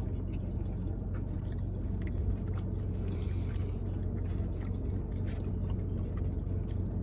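Steady low hum of a car's engine running inside the cabin, with scattered small clicks and mouth sounds of people chewing food.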